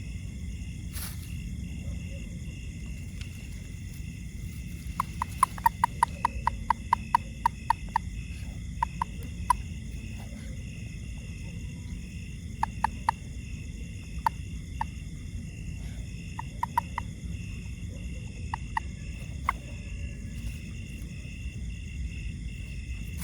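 A frog calling in short, sharp clicks: a fast run of about five a second starting some five seconds in, then scattered single and paired clicks, over a steady insect chorus.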